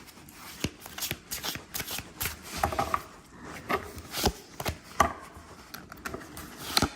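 Tarot and Lenormand cards being handled and laid down on a table: a string of irregular light taps and clicks with rustling of the cards in between.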